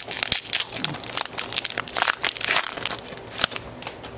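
Foil wrapper of an Upper Deck hockey card pack crinkling as it is torn open by hand: a dense run of sharp crackles that thins out after about three seconds.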